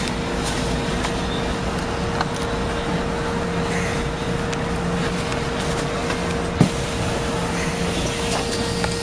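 Interior noise of a moving city bus: steady engine and road rumble with a constant hum. A single knock about two-thirds of the way through.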